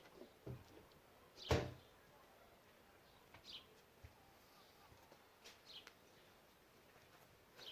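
Mostly quiet, broken by a few scattered short sounds: one louder brief knock or rustle about a second and a half in, a few faint low thuds, and several faint, short, high chirps.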